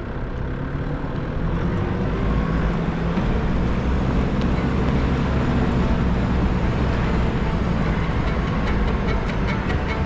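Nissan GU Patrol four-wheel drive climbing a dirt track in low range: a steady engine rumble under load mixed with road noise, growing a little louder over the first couple of seconds.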